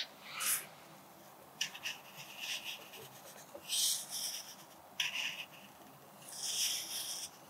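Wooden graphite pencil scratching across paper in a series of short strokes as cursive letters are written, with brief pauses between strokes.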